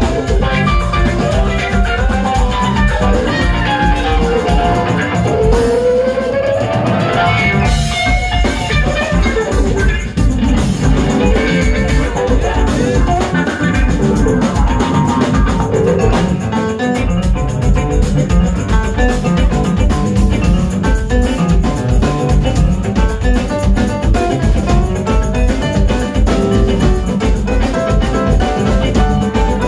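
Live funk band playing: hollow-body electric guitar, electric bass, keyboard and drum kit over a steady beat, loud in a small room.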